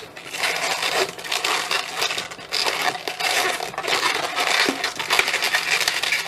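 Inflated 260 latex modelling balloons rubbing together in the hands as they are twisted and locked into a pinch twist: a continuous rubbing with many small clicks.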